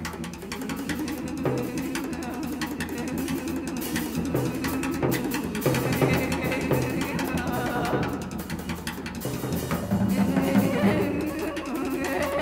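Music with a drum kit playing a steady beat.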